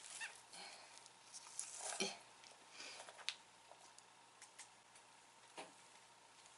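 Faint clicks and soft squishing of slime being handled, with a few sharper ticks in the first half and only occasional ones after.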